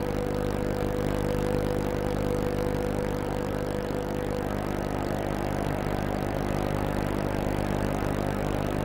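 A boat's engine running steadily under way, a low, even drone with a higher hum over it that fades out about halfway through.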